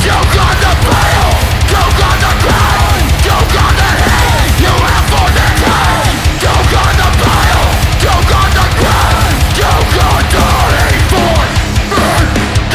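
Loud heavy metal music: distorted guitars over fast, dense drumming.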